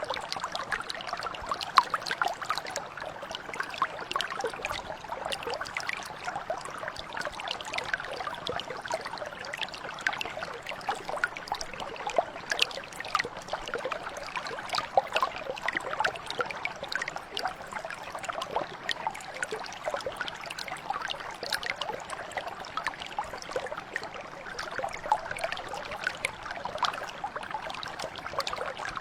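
A shallow stream or mountain brook flowing, with a steady babble of many small trickles and splashes.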